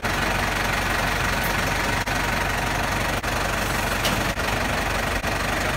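New Holland TL90 tractor's diesel engine running steadily at idle, close by.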